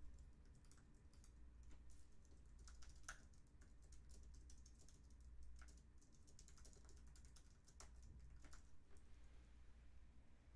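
Faint typing on a computer keyboard: irregular runs of keystrokes that thin out near the end.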